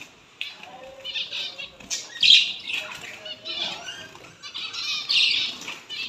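Small finches fluttering their wings and giving high chirping calls as they are let out of a cloth bag into a wire cage. The loudest bursts come about two seconds in and again about five seconds in.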